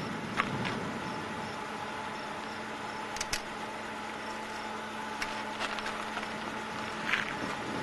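Steady background hiss with a faint low hum, broken by several light clicks, including a quick double click about three seconds in.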